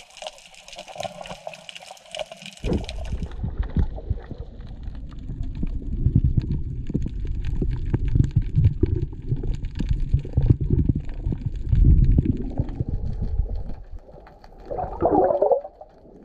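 Underwater sound through a GoPro housing: a fizzing hiss near the surface for about three seconds, then a sudden switch to low, uneven rushing and knocking of water moving against the camera, with a short louder burst near the end.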